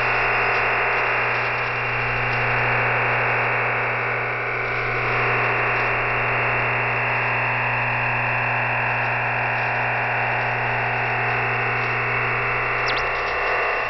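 EasyDRF OFDM digital data signal received over shortwave radio: a steady, dense rushing hiss filling the voice band, with a steady low hum beneath it. The signal is carrying compressed image files, which are being decoded.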